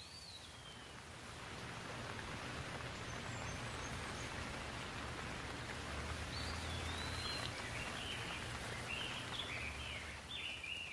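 Steady rain falling, growing louder over the first two seconds, with birds chirping: one chirp at the start and a run of chirps from about six seconds in.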